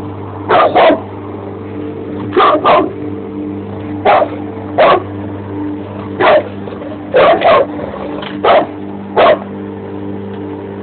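A bandog mastiff barking at a running lawn mower: about a dozen loud, short barks, singly and in quick pairs, over the mower engine's steady hum.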